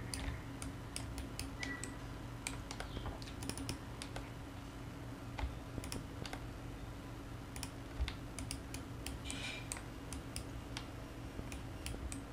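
Irregular clicking of a computer keyboard and mouse as a 3D model is edited, over a faint steady low hum.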